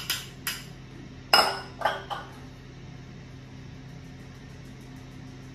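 Ceramic bowl and metal mesh sieve clinking against a stainless steel mixing bowl while custard powder is tipped in and sieved. A few light taps, then one loud ringing clink about a second in and two smaller ones just after; then only a low steady hum.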